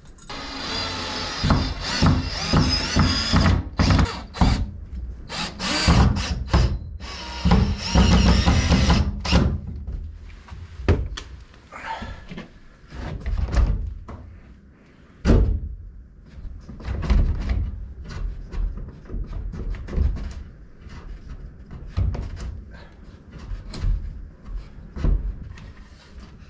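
Cordless drill running in several bursts over the first nine seconds or so, driving screws into the plywood ice-shack door. After that come scattered knocks and clunks of the wooden door and boards being handled, the loudest a single knock about halfway through.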